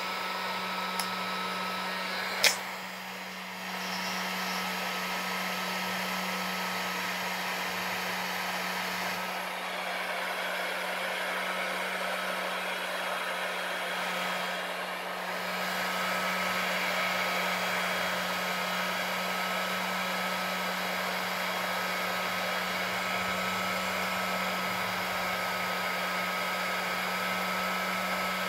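Bosch GHG 660 LCD heat gun blowing steadily with a constant hum, shrinking heat-shrink tubing over a cable joint. A sharp click about two and a half seconds in, after which the blowing dips briefly and picks up again.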